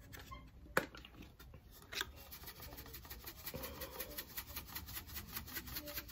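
Black pepper being dispensed over mashed potato: a couple of single clicks, then from about two and a half seconds in a fast, even run of crisp rasping clicks.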